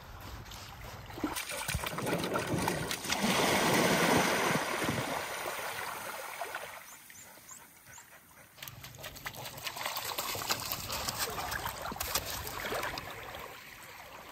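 A dog splashing and wading through a stream, with water trickling and sloshing around it. There are two spells of splashing: one swells and fades over the first several seconds, and a second follows after a short lull.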